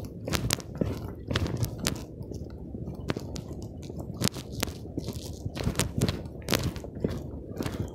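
Handling noise on a phone's microphone: an irregular run of crackles and crunchy clicks over a low rumble.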